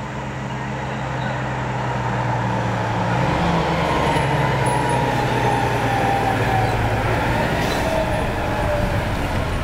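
Fire engine's diesel engine running as the truck drives up and past, its low rumble growing louder over the first few seconds.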